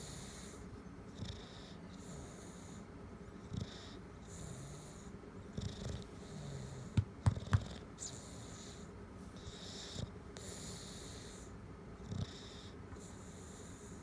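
A bulldog snoring, a hissing breath repeating about once a second. Three sharp knocks come in quick succession about halfway through.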